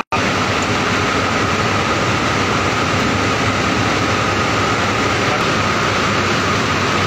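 Finisher draw frame and the spinning-mill machinery around it running: a loud, steady mechanical drone with a steady whine over it. The sound drops out for an instant right at the start.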